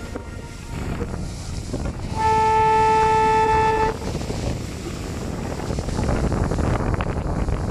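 A boat horn sounds one long blast of nearly two seconds, a single steady tone, about two seconds in. Wind buffeting the microphone and the rush of water run underneath.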